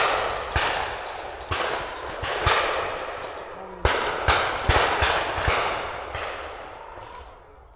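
Shotguns firing in quick, uneven succession at driven pheasants, about ten shots in six seconds, each trailing off in a long echo, with the firing thinning out near the end.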